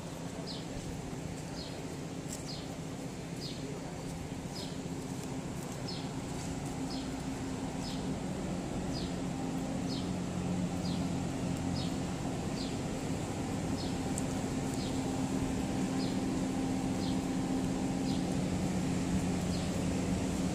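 Steady low mechanical hum, typical of the wall-mounted air-conditioner units along the street, growing louder toward the end. Over it, a short high chirp repeats about once every 0.7 seconds.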